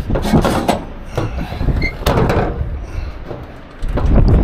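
Rear doors of a Schwarzmüller box trailer being swung shut and their locking bars worked by hand: a string of metal clanks and knocks, then a low rumble starting near the end.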